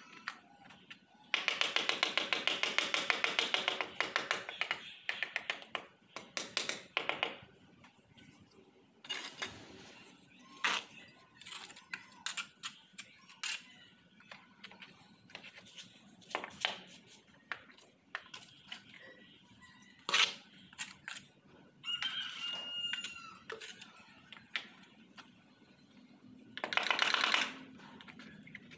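Quick runs of tapping as a trowel handle knocks ceramic wall tiles into their mortar bed: one long run about a second in and a shorter one near the end, with scattered single knocks and clicks between. A short chirping sound comes about two-thirds of the way through.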